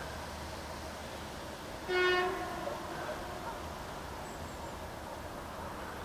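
Diesel locomotive horn, a 2TE10M's, sounding one short toot about two seconds in, lasting about half a second.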